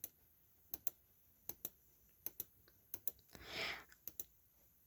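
Faint computer clicks at a steady pace, mostly in quick press-and-release pairs about every three-quarters of a second, with a short soft hiss about three and a half seconds in.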